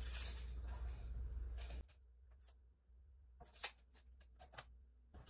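Hands marking a board with a tape measure and pencil: a faint steady hiss for about the first two seconds, then a handful of light scattered clicks and taps.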